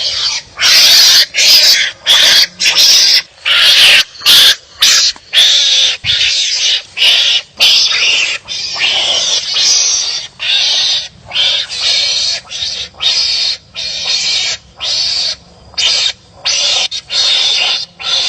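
Wild animals squabbling, trading harsh, raspy barking calls in quick uneven runs of about one to two a second.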